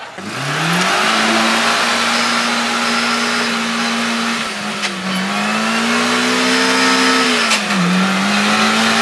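Off-road buggy's engine revved up hard and held at high revs as it tries to push through thick clay with almost no grip. The revs dip briefly twice, about five seconds in and just before eight seconds, and climb straight back up.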